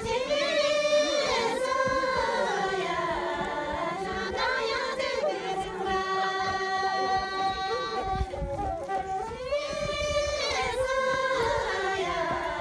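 A group of women singing a traditional song in unison, unaccompanied. Their long held notes rise and fall slowly in phrases of a few seconds each.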